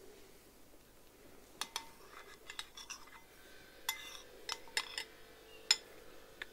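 Metal spoons clinking against bowls as curry is scooped out: a scattering of light, sharp clinks, the sharpest near the end.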